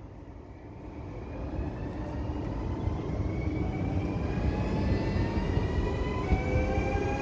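Electric train accelerating, its traction-motor whine rising steadily in pitch over a rail rumble that grows louder.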